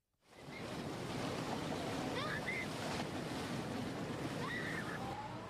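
Fast-moving floodwater rushing through a drainage channel: a steady, dense rush of water that starts suddenly about a quarter second in, with a few faint high glides over it.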